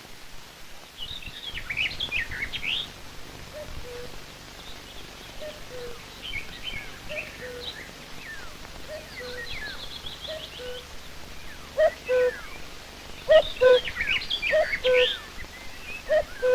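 Woodland birdsong: several small birds chirping and trilling, joined from about four seconds in by a repeated low two-note call, each pair falling in pitch, which grows louder near the end.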